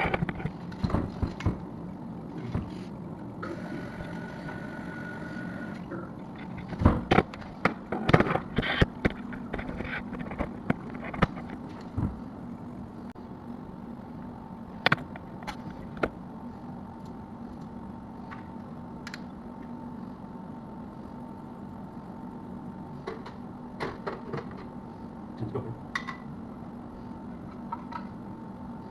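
Clicks, knocks and light scrapes of hand work on toilet tank parts, with a flurry of sharp knocks about a quarter of the way in and scattered clicks after, over a steady low hum.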